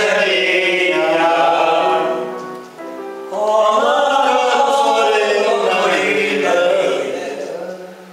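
A group of men singing a song together on long, held notes, in two phrases with a brief break about three seconds in; the singing fades near the end.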